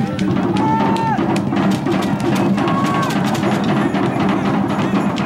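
Drum-led music with a dense, steady beat of drum and percussion strikes. Two short, high held calls sound over it, about a second and about three seconds in.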